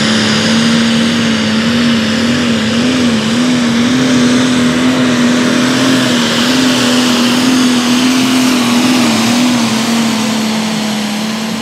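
International Harvester super stock pulling tractor's diesel engine running flat out under full load as it drags the sled, a loud steady drone with a faint high whine above it. The pitch wavers briefly about two to three seconds in, and the sound fades a little near the end.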